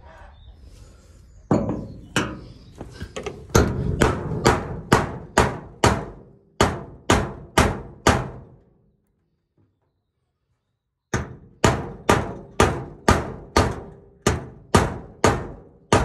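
Hammer blows driving a nail through tin sheeting, about two a second, each with a short metallic ring. The blows stop for about two and a half seconds of silence a little past halfway, then start again at the same pace.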